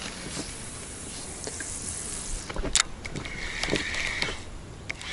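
Spinning reel being cranked in two short bursts, the stepped retrieve of a jig worked along the river bottom, after a single sharp click.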